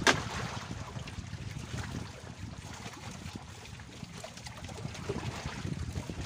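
Wind rumbling on the microphone and water lapping against a bamboo fishing raft, with one sharp click at the very start.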